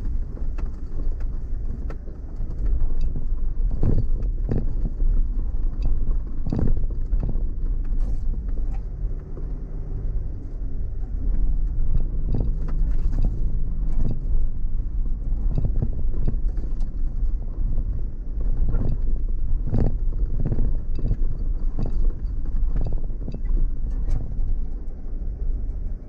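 Off-road vehicle driving over a rough dirt track: a steady low engine and tyre rumble with frequent knocks and thumps from the bumps. The engine note rises briefly near the middle.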